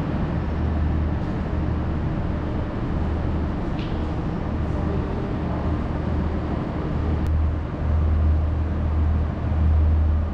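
Railway station concourse ambience: a steady low rumbling hum with a wash of noise over it, swelling a little twice near the end.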